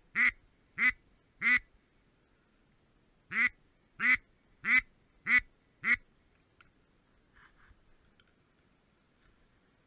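Loud duck quacks, evenly paced about one every 0.6 seconds: three, a pause of about two seconds, then five more.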